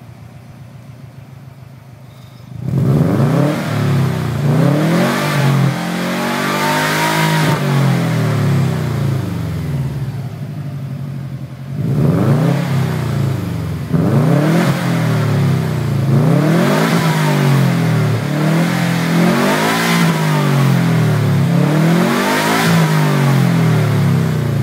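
2003 Subaru WRX's turbocharged 2.0-litre flat-four, stock apart from a cat-back exhaust, idling for about two seconds and then revved over and over, the pitch climbing and falling with each rev. It drops back near idle briefly about ten seconds in before the revving resumes.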